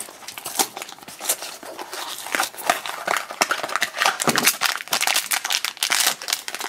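Blind-box packaging being opened by hand: a foil bag and a small plastic bag crinkling and tearing, in irregular crackles that come thicker in the second half.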